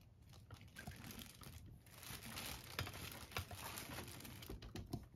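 Faint crinkling and rustling of packaging being handled, denser from about two seconds in, with scattered small clicks and knocks.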